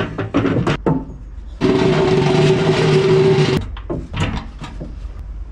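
A metal loading ramp being manhandled: a few knocks, then a loud grinding scrape for about two seconds as it drags against the truck's deck, stopping suddenly, followed by more short knocks.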